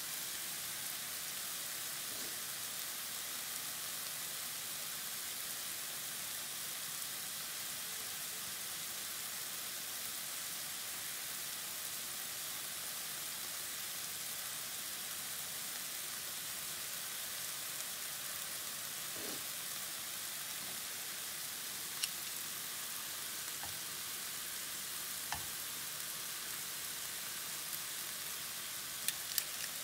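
Diced chicken breast frying in vegetable oil in a nonstick skillet: a steady sizzle. A few light clicks of metal tongs against the pan come near the end.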